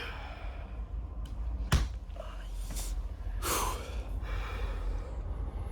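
A single sharp crack from a forceful chiropractic adjustment a little under two seconds in, followed a couple of seconds later by the patient's short, breathy gasp.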